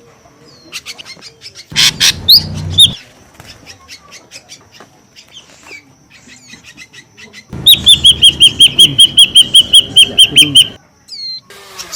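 Ashy drongo calling: scattered sharp chirps and whistles, a loud burst about two seconds in, then about halfway through a rapid, even run of some seventeen loud, clipped downslurred notes, about five a second, lasting about three seconds.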